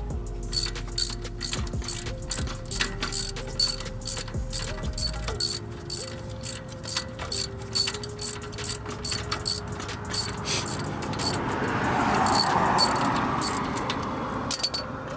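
Hand socket ratchet clicking at about three strokes a second, backing out a wheel hub assembly mounting bolt. A louder rushing noise swells about three-quarters of the way through, over quiet background music.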